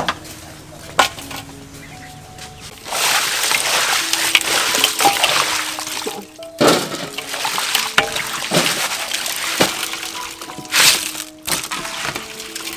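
Sliced green mango being stirred and turned by gloved hands in a metal basin of water, sloshing and splashing, starting about three seconds in, with background music throughout.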